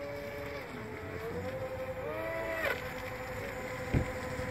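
Whine of the electric motors and propellers on a small homemade RC airboat built from a 250-size quadcopter's motors and props, on a high-speed pass; one steady pitch that dips slightly and recovers. A short knock about two and a half seconds in and a louder thump about four seconds in.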